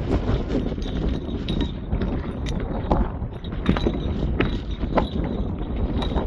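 Wind rumbling on the microphone, with a handful of sharp, irregular clicks and knocks from hands working on a loose fitting.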